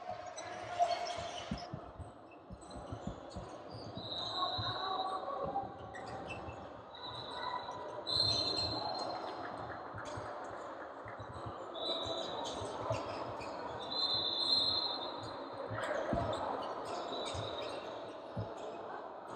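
Basketball bouncing on a hardwood gym floor among players' footsteps during live play, with several short high squeaks and some background voices.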